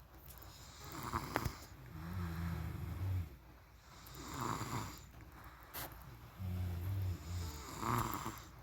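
A person snoring steadily in sleep: two low, buzzing snores about four and a half seconds apart, with breathy puffs of breath between them.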